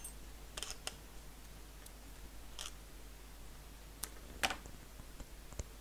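A few faint, scattered clicks and ticks of small tools being handled at a microsoldering bench while flux and desoldering wick are being applied, over a low steady hum.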